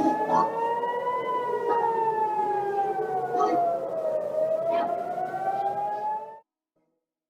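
Emergency-alert alarm siren wailing, several tones gliding slowly up and then down together. It cuts off suddenly about six and a half seconds in.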